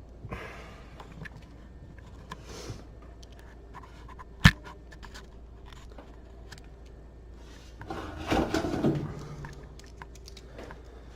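Hands working at a wall oven's door latch assembly: light scrapes and small clicks, one sharp click about four and a half seconds in, and a longer scraping rub near the end.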